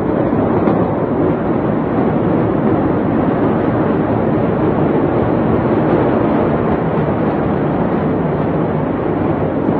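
A steady, even rushing noise with no blasts or other distinct events.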